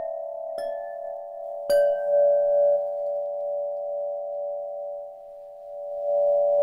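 Crystal harp of tuned crystal rods, struck with a mallet: several close pitches ring on and slowly fade. There is a light strike about half a second in and a louder one near two seconds in that adds a fresh tone.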